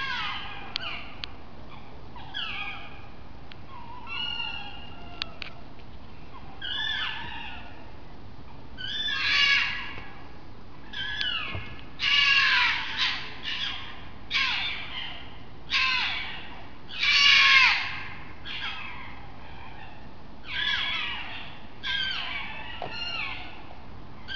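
An unseen animal screeching loudly and repeatedly: about a dozen harsh calls, each under a second and falling in pitch, loudest in the middle. The uploader takes it for birds fighting.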